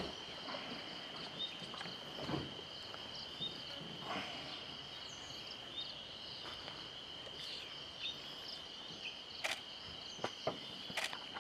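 Insects droning steadily at one high pitch in dry forest, with a few brief bird chirps and scattered faint clicks, two of them sharper near the end.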